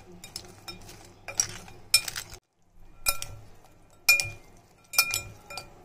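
Metal fork and spoon tossing noodles and shredded cabbage in a glass mixing bowl, with a soft rustle of stirring. About five times the utensils clink against the glass with a short ring.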